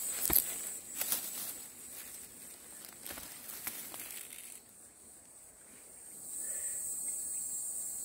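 Dry grass and fallen leaves rustle and crackle as hands part the grass around a mushroom and handle it, with sharp crackles in the first few seconds. The handling then goes quiet, and a steady, high insect chirring comes up over the last two seconds.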